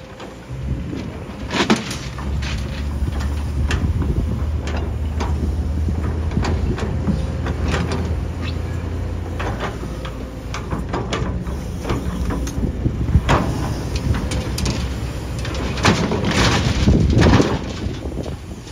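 Hydraulic crawler excavator's diesel engine running under load while its steel bucket scrapes and knocks against broken reinforced concrete and rubble. There is a sharp clank a couple of seconds in, and a run of clanks and scrapes near the end.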